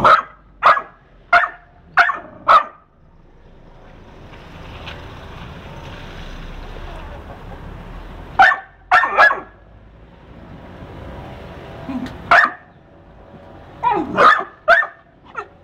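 Pit bull-type dog barking in short bursts: a quick run of five barks at the start, a few more in the middle, and another run near the end. Between the barks a steady hiss swells and fades for a few seconds.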